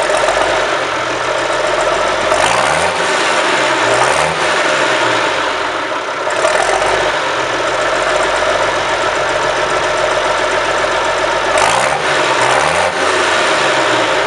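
A modified Nuffield 690 tractor's six-cylinder BMC engine running loudly. It revs up and back down a couple of times about two and a half seconds in, and again near the end.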